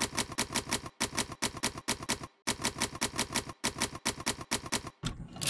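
Typewriter keys striking in quick runs, about nine clicks a second, broken by short pauses. A longer, louder rasp comes near the end.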